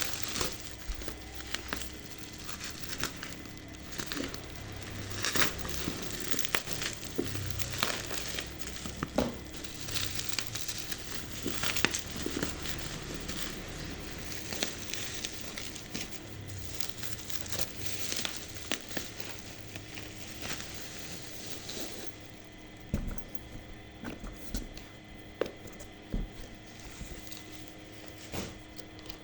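Packaging being unwrapped and handled: crinkling and rustling with many irregular clicks and crackles. About two-thirds of the way through the crinkling stops, leaving scattered lighter clicks and taps.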